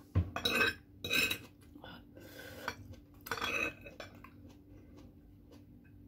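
Metal fork scraping and clinking on a ceramic plate as noodles are gathered up: a short knock, then about four scrapes within the first four seconds.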